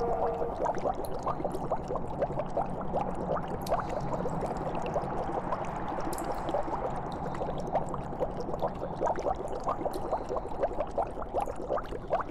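Liquid bubbling, with many small bubbles popping in quick, irregular succession over a low steady hum. A held tone fades out in the first half second.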